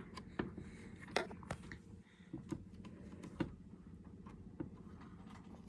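Irregular small clicks and taps from hands and a tool handling the internals of an open ThinkPad T61 laptop, about nine in all, over a steady low hum.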